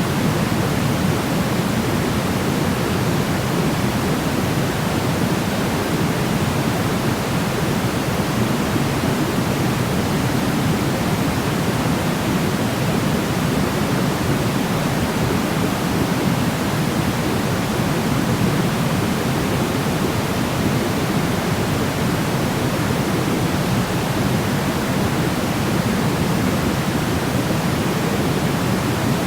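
Steady sleep noise: an even, unchanging rushing hiss with most of its weight in the low-to-middle range, with no rhythm, tones or breaks.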